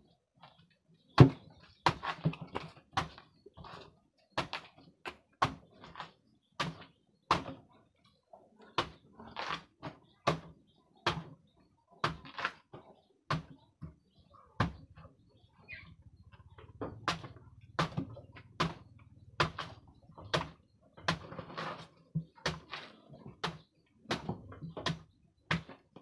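Knife chopping slices off a banana stem into a wooden feed box for water buffalo, a sharp chop about once or twice a second.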